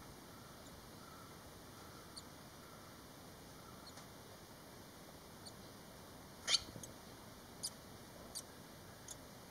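Thin, high cheeps of five-day-old barn swallow nestlings over a faint hiss. A few faint peeps come first, then one louder cheep about two-thirds of the way through, followed by three short ones about a second apart.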